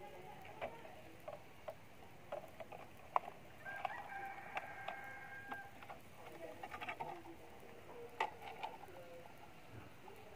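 A rooster crows once, a single held call of about two seconds near the middle. Scattered short clicks and knocks come from the plastic sap-collecting bottle and palm fronds being handled.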